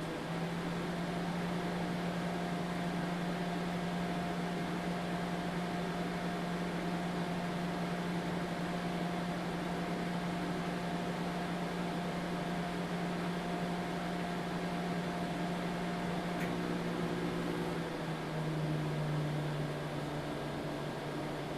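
Microwave oven running with a steady hum. A higher tone over it stops about three-quarters of the way through, marked by a faint click, and the hum shifts slightly soon after.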